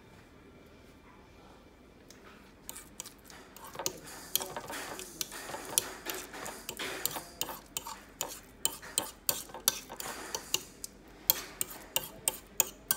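Metal fork scraping and tapping on a ceramic plate while mashing and pushing soft avocado together. After a quiet first two seconds the scraping starts, turning into a quick run of sharp clicks, a few a second, in the second half.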